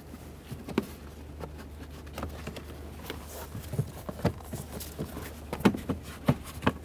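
Plastic lower dash trim panel of a Honda Accord being pushed and tapped into place by hand: irregular light plastic knocks and clicks as its clips and alignment points seat, coming more often in the second half.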